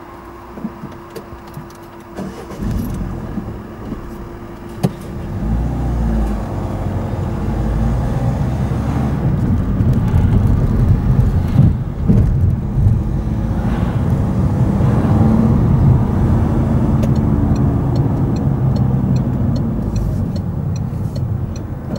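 Car pulling away from a standstill and driving on, engine and tyre noise building from about two seconds in, with a sharp knock about five seconds in. Near the end the car's direction indicator ticks steadily.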